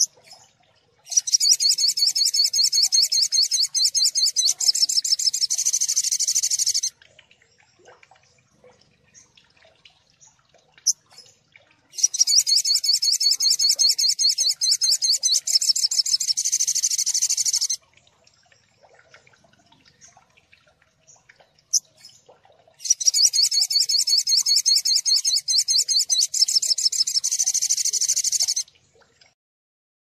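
Sogon sunbird song played as a training (masteran) recording: rapid, high, rattling 'tembakan' song in three bursts of about six seconds each, with pauses of about five seconds between them.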